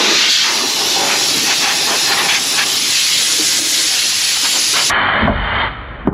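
Loud, steady hiss of a spraying jet, used to clean corrosion from around the car battery. It cuts off suddenly about five seconds in, and a few low thuds follow.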